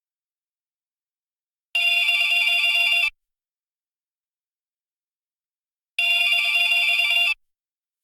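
Loud telephone ringing: two rings, each about a second and a half long, roughly four seconds apart, with silence around them.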